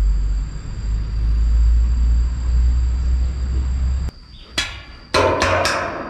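Wind rumble on the microphone, then from about five seconds in a quick run of sharp knocks, several a second, as something is struck at the foot of a metal stand leg.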